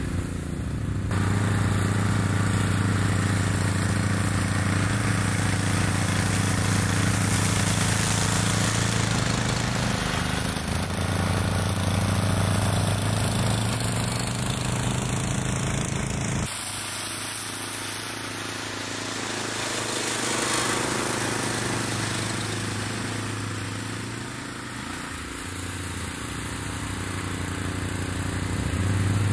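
Rammy tow-behind ATV brush cutter mowing tall grass, its engine and the ATV's running steadily at an even pitch. The sound grows fainter late on, then louder again near the end as the machine comes back closer.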